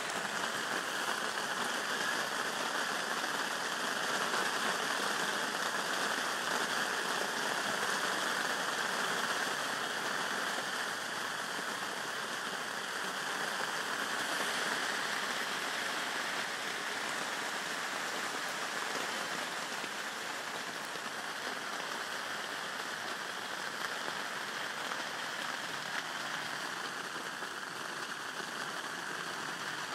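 Steady rain falling on a lake surface and a gravel bank: a continuous, even hiss of many drops, a little louder in the first ten seconds.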